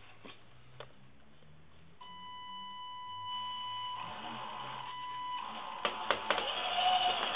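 Electric drive of a Tamiya Tundra RC crawler truck with a Venom Fireball 19-turn brushed motor and TEU-101BK speed controller: a steady high-pitched whine as it creeps at low throttle. Around six seconds in come a few sharp clicks and knocks as the tyres climb the obstacles, followed by a busier, lower whine.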